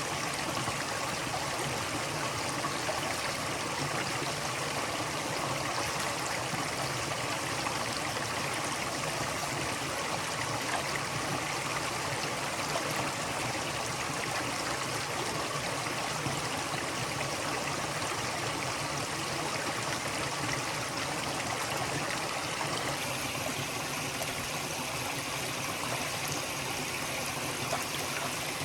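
Stream water flowing steadily over rocks, a continuous rushing babble.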